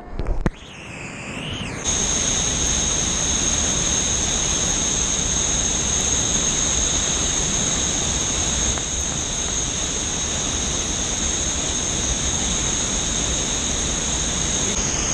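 Steady rushing roar of a river waterfall and whitewater pouring over the drop, with a thin, steady high whine on top. In the first two seconds there is broken splashing that cuts in and out as water hits the camera, before the even roar takes over.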